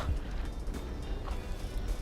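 Blizzard wind rumbling on the microphone, with background music.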